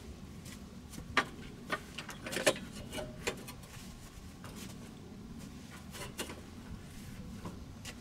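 Folding camp table being opened out and set down: a run of sharp clicks and clacks as the legs and top lock into place, busiest and loudest around two and a half seconds in, with a few lighter knocks later.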